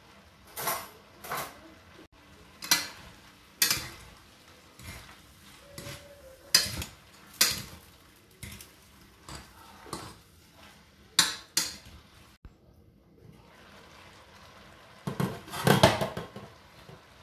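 A utensil knocking and scraping against a stainless steel cooking pot as spaghetti is tossed and mixed, in separate clinks every second or so. A louder clatter about fifteen seconds in as the pot lid is handled.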